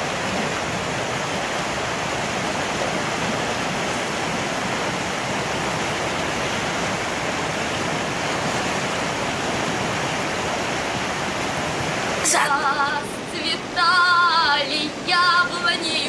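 Waterfall rushing over rocks, a steady even noise of falling water. About twelve seconds in it cuts suddenly to a woman singing with a wavering voice, with water still faint underneath.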